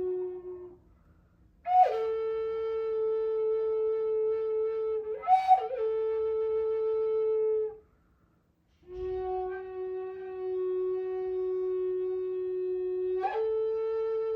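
A wind instrument, flute-like, plays long held notes that step between two neighbouring pitches. There are short breath breaks about a second in and again near eight seconds, and a quick flick up to a higher note around five seconds.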